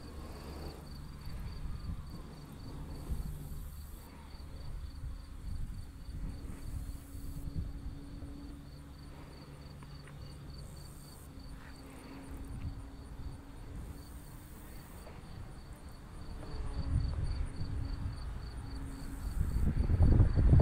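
Crickets trilling steadily in a high, evenly pulsing chirp, over the faint on-and-off drone of a radio-controlled model airplane flying far off. Wind rumbles on the microphone, swelling near the end.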